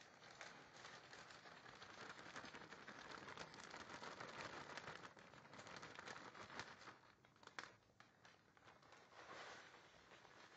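Faint crinkling and rustling of a clear plastic bag as fertilizer is shaken out of it onto coco peat. It is a dense crackle at first, with a couple of sharper crackles about seven seconds in, then it grows quieter.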